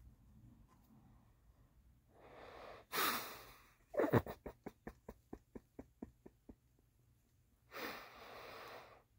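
A person's breathy, stifled laughter: a sharp snort of breath about three seconds in, then a run of quick breathy chuckles that fade over a couple of seconds, and another long exhale near the end.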